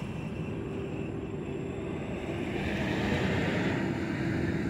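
Freightliner semi-truck with a trailer driving past: steady engine and tyre noise on the road, getting a little louder and hissier about halfway through.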